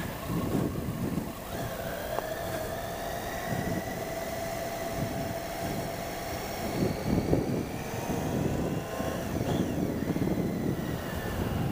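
Triumph Tiger 800 XCx's three-cylinder engine accelerating as the motorcycle picks up speed, its pitch climbing slowly and dropping about nine seconds in. Wind rumble on the helmet-mounted microphone runs underneath.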